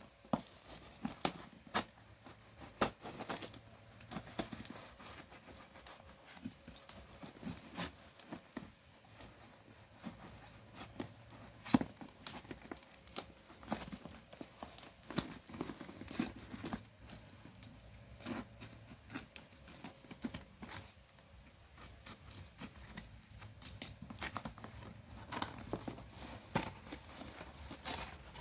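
A package being opened by hand: tearing, cutting and crinkling of packing material, with irregular clicks and scrapes and one louder snap in the middle.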